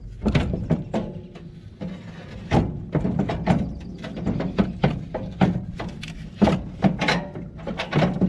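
Irregular metallic knocks and clunks as an excavator hydraulic oil cooler is worked up out of its compartment, its frame bumping against the surrounding metal.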